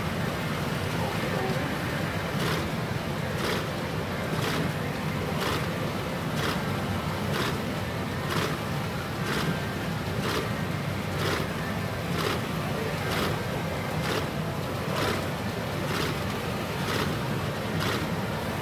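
Pachinko parlour din: a steady rush of noise from the machines and their steel balls, with a sharp tick repeating about once a second from a couple of seconds in, as the pachinko machine runs its reach presentation.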